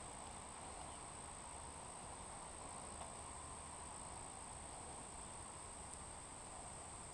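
Faint, steady high-pitched insect trill over quiet outdoor ambience.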